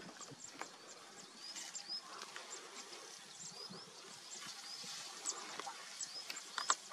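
Small birds chirping, many short high chirps and quick upward sweeps several times a second over a faint rustle. A couple of sharp clicks come near the end.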